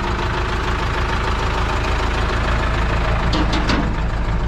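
Flatbed tow truck's diesel engine idling steadily. A few short clicks come about three and a half seconds in.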